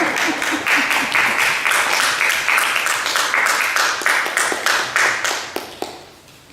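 Audience applauding: many hands clapping at once, thinning out and fading away over the last second or two.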